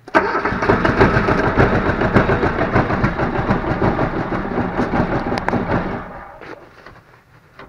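Cold diesel engine cranked over on its starter motor after glow-plug preheating. It turns over for about six seconds without settling into a run, then the cranking stops.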